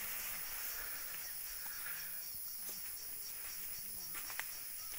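Forest insects chirring steadily in a high shrill, pulsing about four times a second. A few crunching footsteps on dry leaf litter sound near the end.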